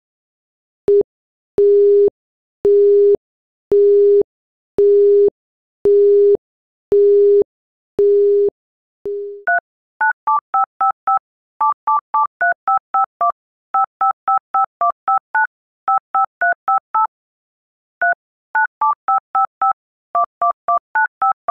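Telephone line tones: a steady low beep pulsing on and off about once a second, about eight times, like a Japanese busy signal. Then quick runs of short two-tone push-button keypad beeps, as when a number is dialed, fill the rest.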